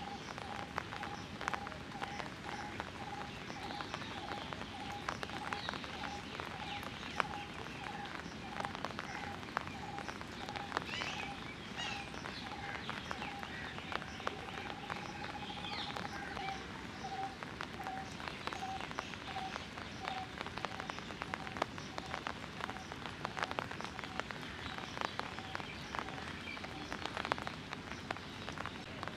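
Light drizzle dripping on leaves and branches, a steady scatter of small drip ticks. Through it runs a repeated low call note about twice a second, which briefly turns into a quick trill near the middle, with a few high bird chirps now and then.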